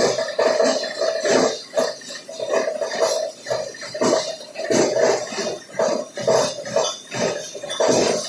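Shredding machine for used woven plastic sacks running, its noise surging and dropping irregularly with a steady hum underneath.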